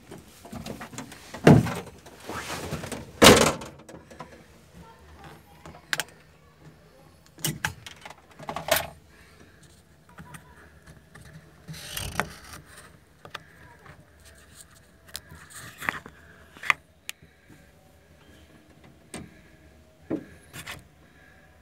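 Scattered knocks, clicks and rattles inside an off-road 4x4's cab, loudest in the first few seconds, over a faint steady engine idle.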